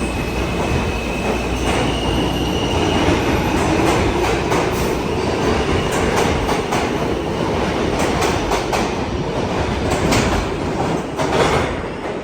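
New York City subway train running through the station, a steady rumble with its wheels clacking rapidly over rail joints; the sound falls away near the end.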